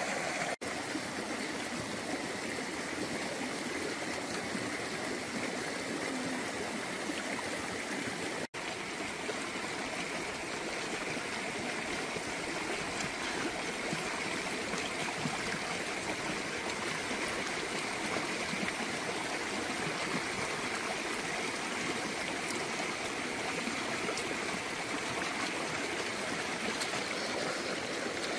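Steady rush of a flowing stream, cutting out for an instant twice, once near the start and once about a third of the way in.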